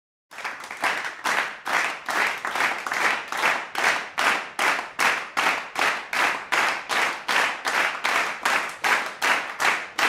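Rhythmic hand clapping in a steady beat, about two claps a second, with no other instruments.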